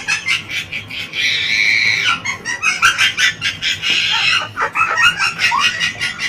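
Birds calling in quick, short chirps and squawks, with one longer, harsher call a little over a second in.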